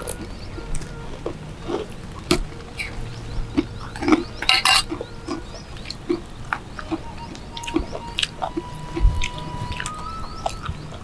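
Eating sounds of people eating by hand: chewing, small clicks and light clinks of a spoon against a ceramic bowl, with a louder crunch about four and a half seconds in.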